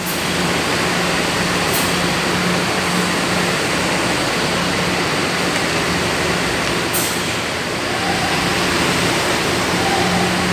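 Mercedes-Benz OH 1626 coach's diesel engine running as the bus moves slowly: a steady low hum under a broad rushing engine noise.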